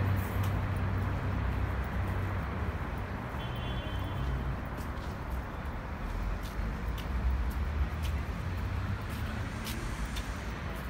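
City street ambience: a steady low rumble of traffic, with faint footsteps on the pavement about once a second and a brief high tone about three and a half seconds in.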